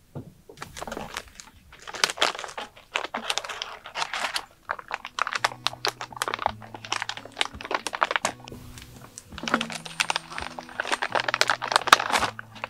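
The plastic-foil bag of a Hot & Cook self-heating meal crinkling and rustling in bursts, with short pauses, as it is handled and opened and its inner pouches are pulled out.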